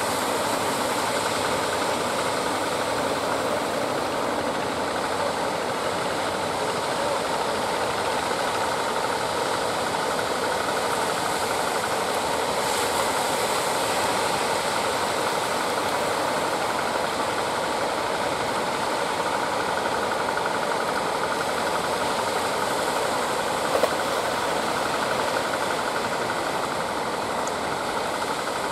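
Motors of small wooden outrigger fishing boats running steadily under power, a continuous fast mechanical clatter.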